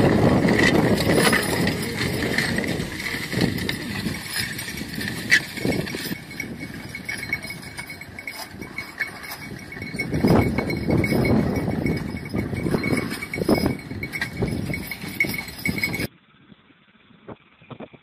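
A team of draft horses pulling a disc harrow through tilled soil, with uneven metal rattling from the harness and the harrow's steel discs. About two seconds before the end it cuts to a much quieter recording with a few faint clicks.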